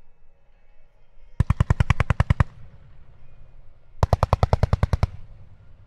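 Fireworks going off in two rapid volleys of sharp bangs, about ten a second, each volley lasting about a second, with a short rumbling echo after each.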